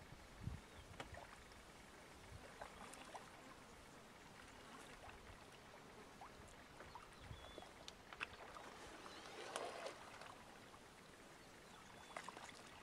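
Faint splashing and sloshing of spotted hyenas wallowing and rolling in a shallow muddy pool: scattered small splashes, with a longer slosh about three-quarters of the way through.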